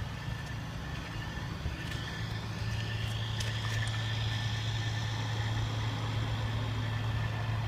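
A vehicle engine running steadily with a low hum, getting slightly louder about two and a half seconds in.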